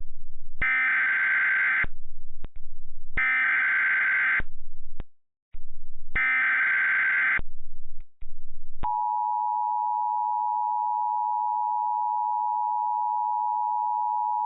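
Emergency Alert System SAME header: three screechy bursts of digital data tones, about a second each with short gaps between. About nine seconds in, the steady two-tone EAS attention signal starts, opening an urgent weather alert.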